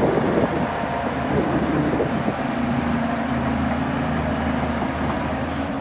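Bulldozer's diesel engine running steadily under work, with a low hum and a clearer engine note coming in a little over two seconds in.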